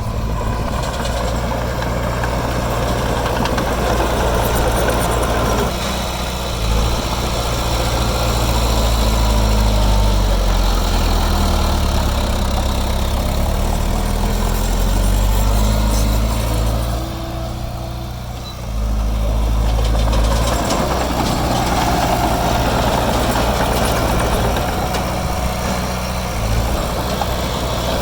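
Diesel engine of a heavy earthmoving machine running under work, its pitch rising and falling as it is throttled up and down, with a brief drop in level a little past halfway.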